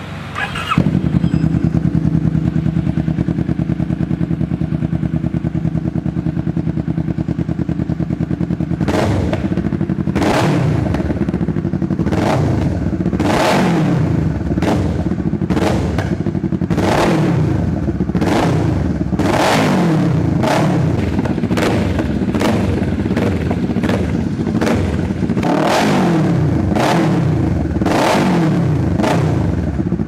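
Kawasaki Vulcan 650's parallel-twin engine breathing through a custom muffler: it starts under a second in and idles steadily, then from about nine seconds in it is revved in repeated short blips, each falling back with sharp pops and bangs.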